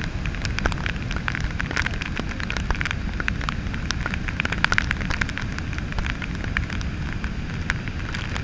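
Steady low rumble of Victoria Falls and its drifting spray, with many sharp little ticks of spray drops striking the camera.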